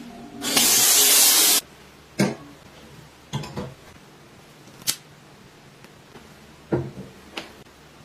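A loud burst of hissing spray lasting about a second, cut off sharply. It is followed by several light clicks and knocks, like objects being handled and set down.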